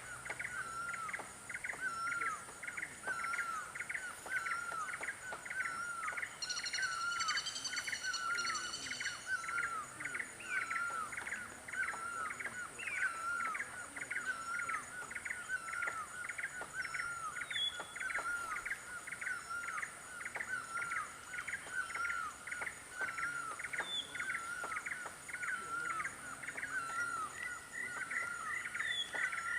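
A bird repeating a short chirping call about twice a second, steadily and without a break, over a steady high insect-like hum. A second, higher warbling call joins briefly a few seconds in.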